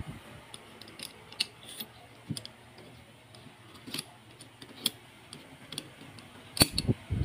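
Scattered light metal clicks and taps as a 1911 pistol's slide and barrel bushing are handled and fitted at the muzzle end, with a louder sharp click cluster about six and a half seconds in.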